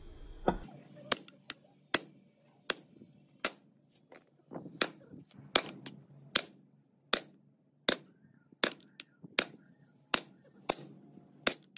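Hammer blows on a steel pipe drift set over a gear reducer's shaft: sharp metal strikes at a steady pace of about one every three-quarters of a second, driving the shaft down out of its bearing seat in the gearbox housing.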